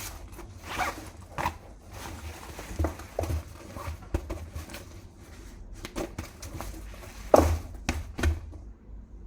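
Handling noises: an irregular run of clicks, rustles and light knocks, with one sharper knock a little over seven seconds in.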